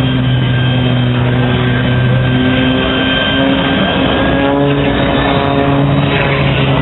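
Korean War-era jet fighter engines running at taxi power as a MiG-15 rolls past close by: a loud, steady hum with a thin high whine over it.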